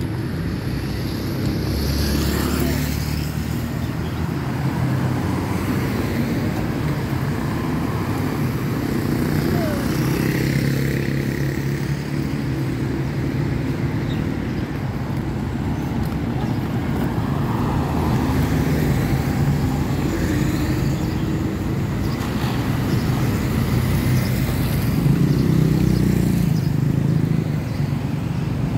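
Road traffic: cars and motorcycles passing on a city road, their engines swelling and fading several times over a steady low rumble.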